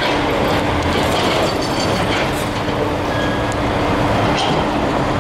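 Heavy diesel engines of a dump truck and an excavator running steadily, a constant low rumble with a steady hum over it.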